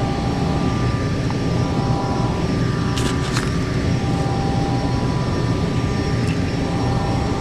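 Gas furnace running steadily, with two light clicks about three seconds in.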